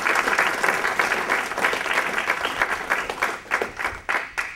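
Audience applauding, a dense patter of many hands clapping that thins out near the end into a few last separate claps.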